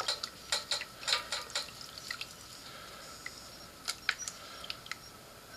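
A string of light, irregular clicks and taps from small objects being handled, mostly in the first two seconds with a few more around four seconds in, over a faint steady hum.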